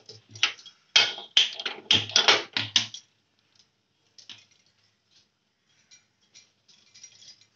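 Gas stove knob being turned to light the burner, with a rapid run of sharp ignition clicks for about two seconds, then a few faint ticks.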